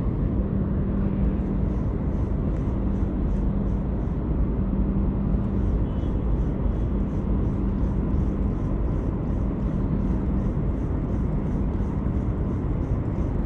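Spinning reel being wound in during a lure retrieve: a fine, regular ticking about three times a second, over a steady low rumble with a hum.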